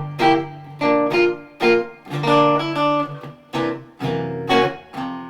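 Theo Scharpach-built 18-inch X-braced archtop guitar (the OpusG) played in a run of strummed chords, each chord ringing briefly before the next.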